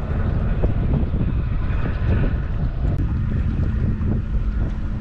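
Wind buffeting the microphone, a steady low rumble, with water lapping against the boat's hull.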